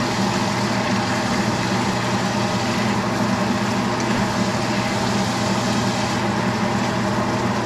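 Food sizzling in a frying pan: an even, steady hiss over a constant low hum.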